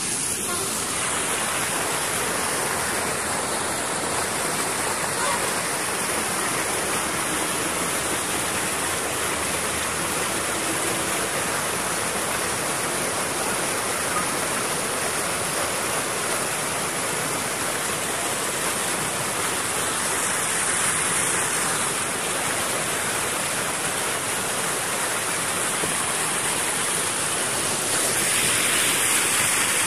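Muddy floodwater rushing and churning through a swollen stream and over a low weir, a steady noise of water that grows a little louder near the end.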